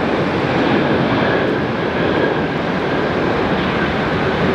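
Airbus A330 jet airliner touching down and rolling out on the runway: a steady, loud rush of jet engine noise, with a faint high whine running through it for a couple of seconds about a second in.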